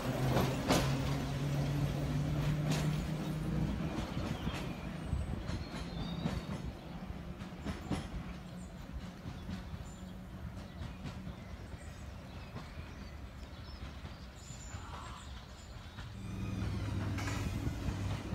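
Class 483 electric train (ex-London Underground 1938 tube stock) pulling away: steady motor whine and a few clicks of wheels over rail joints, fading as it recedes into the distance. About two seconds before the end a second Class 483 starts up close by, louder, with a steady low hum.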